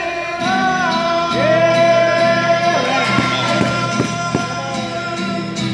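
A man sings a long held note over an acoustic guitar, the voice wavering in pitch about three seconds in, with a few sharp guitar strums just after.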